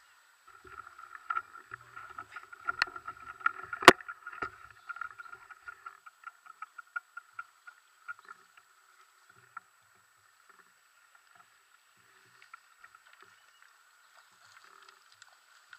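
Rustling and clattering of close handling and steps through grass onto loose riverbank stones, dense for the first eight seconds or so with a sharp knock about four seconds in, then thinning to scattered faint clicks.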